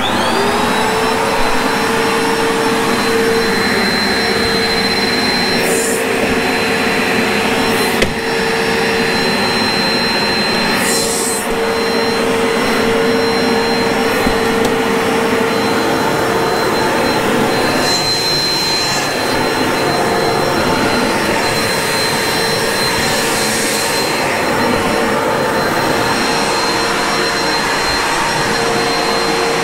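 Bissell upright carpet cleaner switched on, its motor spinning up within a second to a steady hum and high whine over a rush of suction air, then running steadily while it washes a carpet mat. One sharp knock about eight seconds in.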